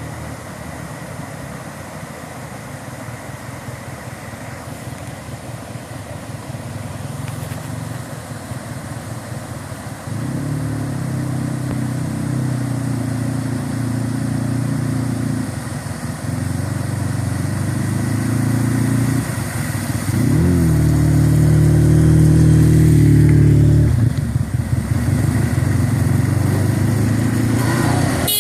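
Yamaha FZ1 sportbike's inline-four engine running at low speed, growing louder about ten seconds in. The revs rise briefly around twenty seconds, it is loudest for the next few seconds, then eases off.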